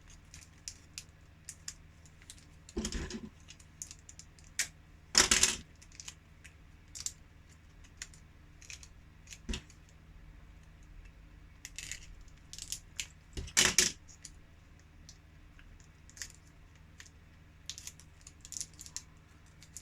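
Scattered small plastic clicks and taps with a few short, louder rustling bursts: a blood glucose meter kit's test-strip pack and small parts being handled and opened.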